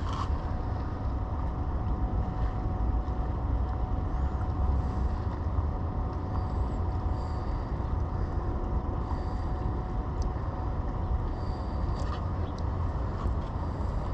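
Steady low outdoor rumble with a faint, thin steady hum above it and a few faint ticks.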